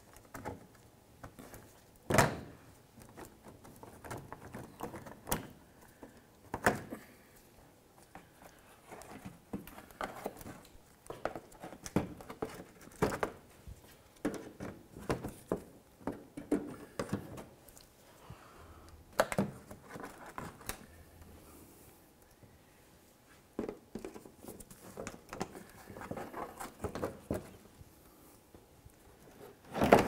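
Plastic push clips being gripped with cutters and pulled out of a 2004 Buick LeSabre's plastic lower splash shield: irregular sharp clicks, snaps and light knocks of plastic and metal tool, the loudest about two seconds in.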